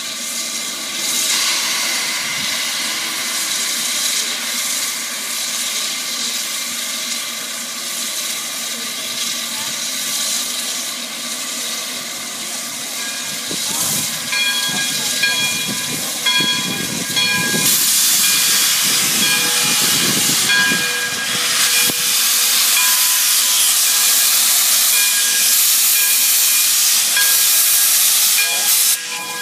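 Abilene and Smoky Valley No. 3415, an ex-Santa Fe 4-6-2 steam locomotive, hissing steam steadily as it moves slowly past. It grows louder about halfway through with a heavy rush of escaping steam. Several thin high tones come and go over it.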